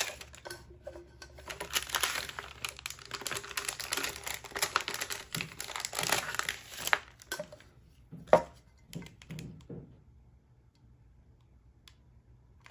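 Stencil paper and its backing sheet crinkling and rustling as adhesive stencil hearts are peeled off and pressed onto a tumbler, with scattered light clicks and one sharper tap about eight seconds in.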